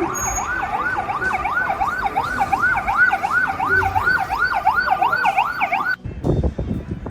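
Emergency vehicle siren in a fast yelp, a rising wail repeating about three times a second. It cuts off suddenly about six seconds in, and low rumbling noise follows.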